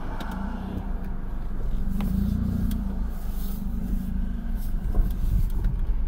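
Car running and rolling along the road, a steady low engine and tyre rumble heard from inside the cabin, with a short knock about five seconds in.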